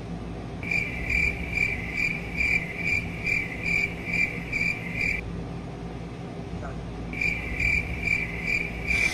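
Cricket chirping in a fast, even pulse of about two and a half chirps a second, in two runs with a break of about two seconds between them.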